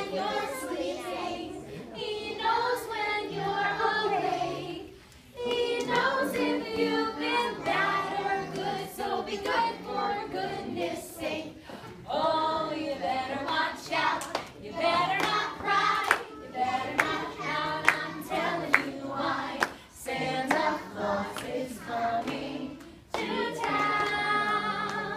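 A group singing together, women's and children's voices, with hands clapping along; the singing breaks off briefly about five seconds in.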